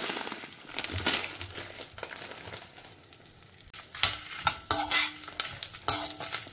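Spices roasting in a stainless steel pan with a soft sizzling hiss that fades over the first second or so. From about four seconds in, a metal spoon stirs and scrapes the spices and desiccated coconut, its knocks against the pan ringing briefly.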